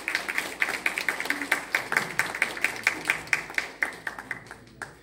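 Audience applauding, with nearby claps standing out at a steady four or so a second. The applause fades away after about four seconds, with one last clap near the end.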